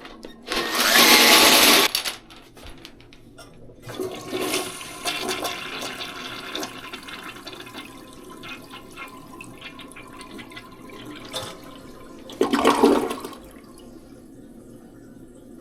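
Toilet flushing: a loud rush of water in the first couple of seconds, then softer water running as it refills. A second short loud rush of water comes about twelve seconds in.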